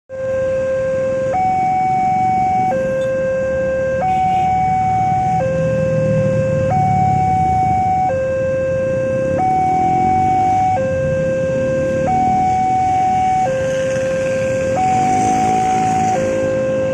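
Electronic warning alarm of an Indonesian railroad level crossing, sounding from the loudspeaker on the crossing pole: a steady two-tone signal switching between a lower and a higher tone about every 1.4 seconds while the barrier is down. Motorcycle engines idle and pass underneath it.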